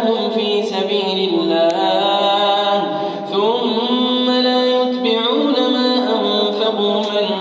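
A man's voice reciting the Quran in melodic tajwid style, drawing out long held notes that step up and down in pitch.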